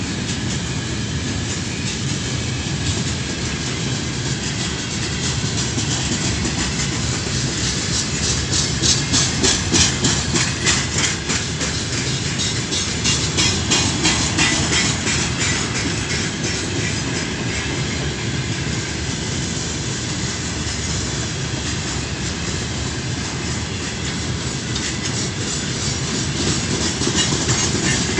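Freight train of open-top gondola wagons rolling past: a steady rumble of steel wheels on the rails with rattling and clickety-clack over the rail joints, louder for several seconds in the middle.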